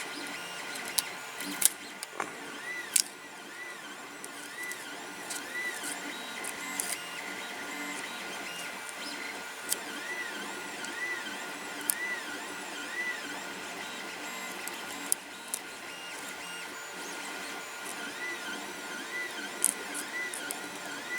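3D printer running a print, its stepper motors whining in short tones that rise and fall as the print head moves back and forth, over a steady mechanical hum. A few sharp clicks sound now and then.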